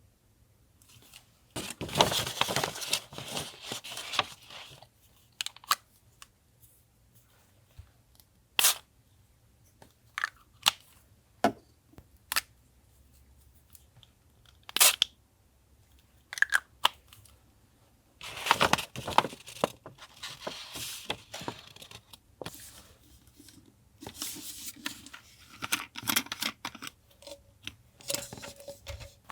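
Paper being torn and handled in three longer stretches, with single sharp taps and clicks in between.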